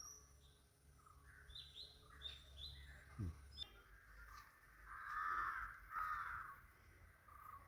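Crows cawing, two loud rough caws about five and six seconds in. Before them come small birds' short high chirps and a brief knock just after three seconds.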